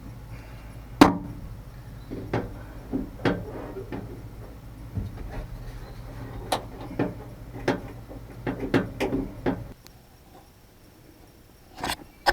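Irregular clicks and light knocks, about a dozen, of hands and tools working on a pickup truck's door, over a steady low hum that stops about ten seconds in.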